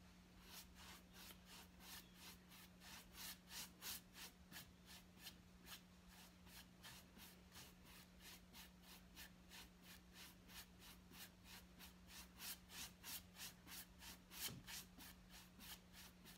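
Paintbrush scrubbing back and forth over canvas in quick crisscross strokes, laying a thin acrylic glaze: a faint, even scratching of about five strokes a second. A low steady hum runs underneath.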